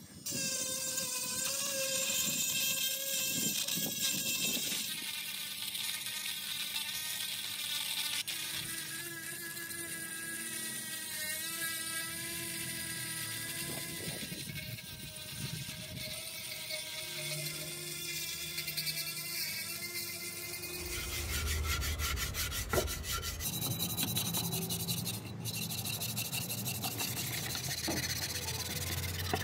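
Small handheld electric power tool running with a steady whine and an abrasive rubbing on the work, its pitch changing every few seconds; a lower hum joins about two-thirds of the way through.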